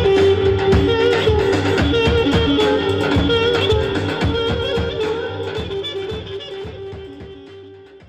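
Roman havası dance music from a live band of violins, keyboard and accordion over a busy goblet-drum beat. It fades out over the last three seconds.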